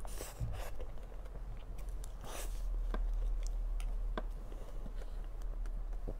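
Close-miked eating of soft cream cake: wet chewing and mouth sounds as spoonfuls are taken, with a few sharp light clicks scattered through.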